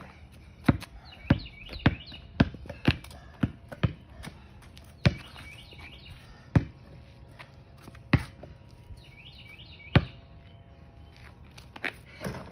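A basketball bouncing on a hard court. It is dribbled at about two bounces a second for the first few seconds, then bounces singly every second or two, with one louder bounce near the end.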